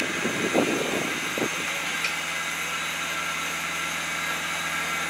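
Steady mechanical hum, with a few brief knocks and rustles in the first second and a half.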